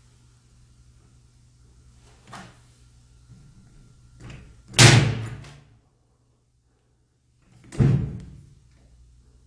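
A door being worked by its round metal doorknob: a few light clicks, then two loud door thuds about three seconds apart, as the door is jerked against its frame.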